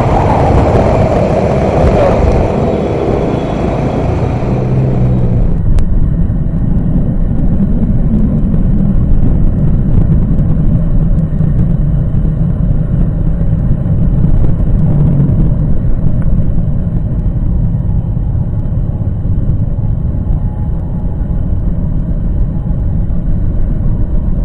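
Motorcycle riding in city traffic heard through a bike-mounted action camera: heavy wind rumble on the microphone with engine and traffic noise beneath. A brighter hiss cuts off suddenly about six seconds in.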